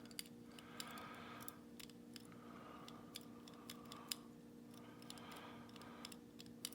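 Faint scattered clicks and light scraping of a lever-lock pick and tension tool working the levers inside a Legge Insurance 5-lever padlock, over a low steady hum. The levers feel springy, with no progress felt.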